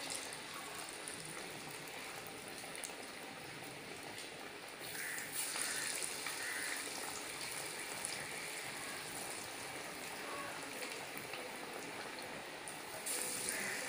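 Hot oil sizzling and bubbling around a chickpea vada deep-frying in a kadai, a steady hiss that gets a little louder about five seconds in.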